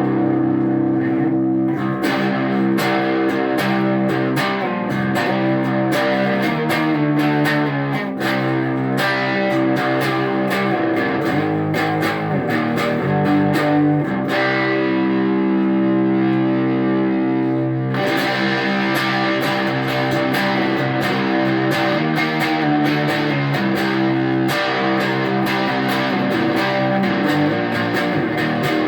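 Electric guitar played through the Hofamp meTeor, a 5-watt single-ended 6V6GT valve amplifier, with an overdriven tone: ringing chords and single notes. Around halfway the sound turns softer and less bright for a few seconds, then comes back brighter.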